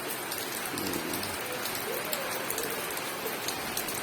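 Steady rain falling, an even patter of drops on the surfaces around.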